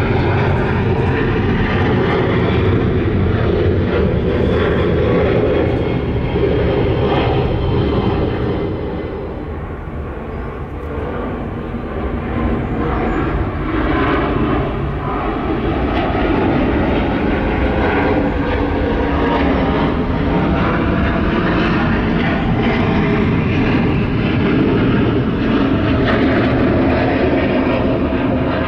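Jet airliner engines during departure climb-out, a steady loud rumble. It dips briefly about ten seconds in, then builds again.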